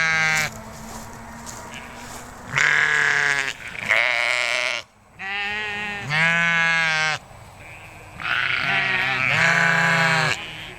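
Sheep bleating repeatedly, about six drawn-out calls of varying pitch with short pauses between them.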